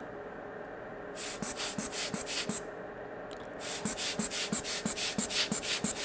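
Quick scratchy rubbing strokes, about three a second, in two runs with a short pause between, over a faint steady hum.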